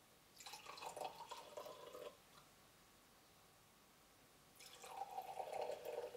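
Red wine poured from a bottle into a cut-crystal wine glass, a splashing, gurgling pour lasting under two seconds. After a pause, a second pour into another glass begins about four and a half seconds in.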